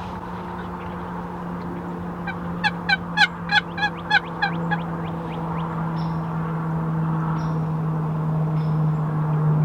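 Wild turkey yelping: a series of about nine evenly spaced, pitched notes lasting a couple of seconds, over a steady low hum that slowly drops in pitch and grows louder.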